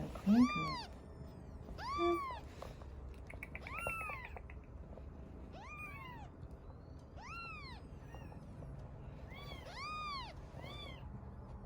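Newborn cream doll-face Persian kitten mewing over and over. The cries are thin and high, each rising and then falling, about one every second or so.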